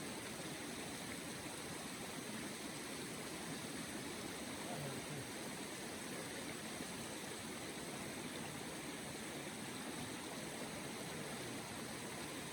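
Steady rushing noise with no distinct events, holding an even level throughout.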